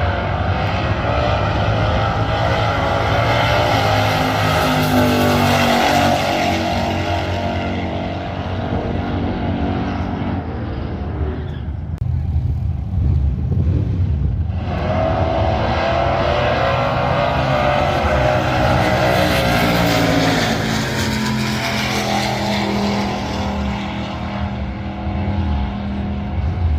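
Car engines running hard at a drag strip, their pitch climbing and falling as they rev. The sound eases off about halfway through, then builds again for a second stretch.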